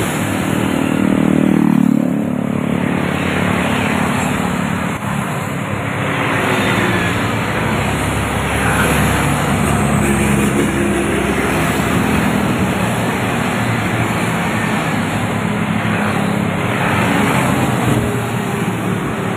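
Busy highway traffic passing close: motorcycles, cars and buses going by with a steady rush of engine and tyre noise. A passing vehicle's engine is loudest about two seconds in, its pitch falling as it goes past, and another heavy engine hum swells and fades around the middle.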